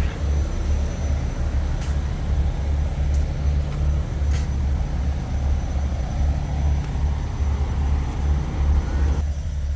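Diesel semi-truck engine idling nearby: a steady low rumble that swells and dips, with a few light clicks over it.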